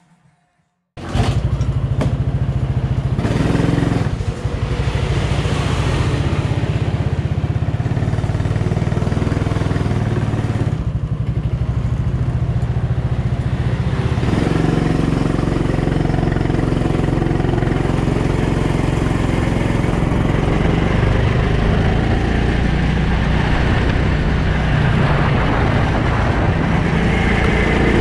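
Go-kart's small petrol engine running loud and steady, heard up close from a helmet-mounted camera. It cuts in suddenly about a second in, with short dips around four and eleven seconds.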